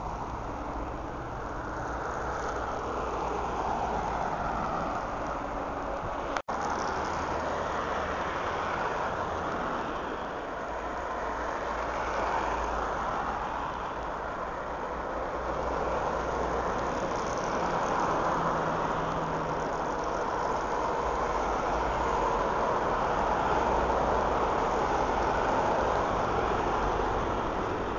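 Road traffic on a snow-covered road: cars, vans and trucks driving past, a steady mix of tyre and engine noise that swells and fades as each vehicle goes by. A momentary drop-out in the sound about six seconds in.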